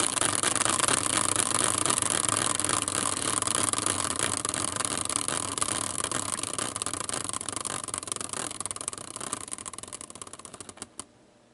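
Hand-spun prize wheel made from a caster wheel on a metal bracket, whirring with rapid ticking as it spins. It slowly gets quieter, the ticks spread further apart, and it stops about eleven seconds in.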